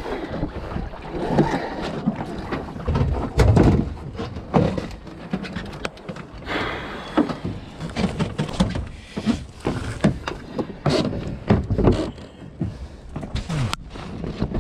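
Irregular knocks, clatter and rustling aboard a Wanderer sailing dinghy as its lines and sail are handled.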